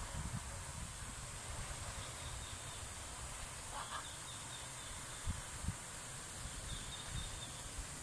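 Outdoor ambience: a steady hiss, uneven low wind rumble on the microphone with a couple of bumps just past the midpoint, and a few faint high chirps.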